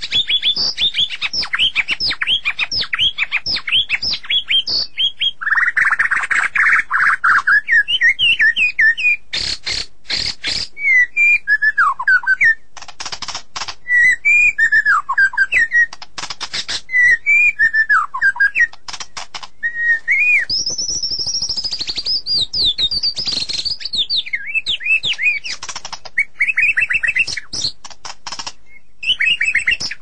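White-rumped shama (murai batu) singing a long, varied song of rapid chirps and sweeping whistles, broken by dry clicking rattles.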